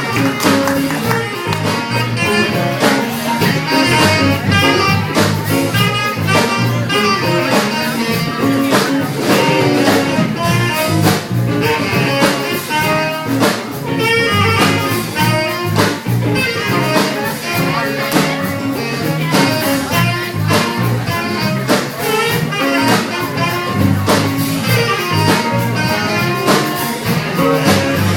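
Live band playing an instrumental jazz-blues number, with a saxophone carrying the melody over guitar and drums keeping a steady beat.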